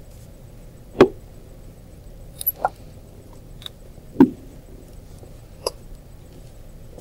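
Two sharp knocks about three seconds apart, the first a second in, with a few lighter clicks between and after: painting tools and objects being handled and set down on a tabletop.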